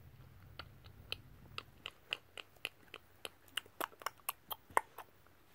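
Faint, quick clicks and crackles, about three or four a second, from hands handling plush toys and their card hang tags.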